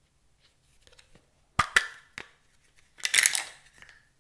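Hard plastic clicks and crackling as the blister packaging of a small toy makeup set is handled and opened. The loudest part is a short, dense clatter a little after halfway through, as the mini lipsticks and bottle are tipped out into the glass bowl of slime.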